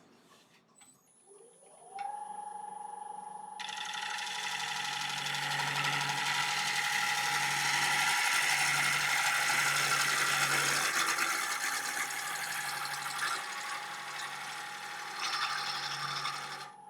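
Wood lathe motor spinning up with a rising whine about a second in, then a bowl gouge cutting the inside of a spinning ash bowl: a steady hiss of shavings over the motor's whine, which stops suddenly near the end.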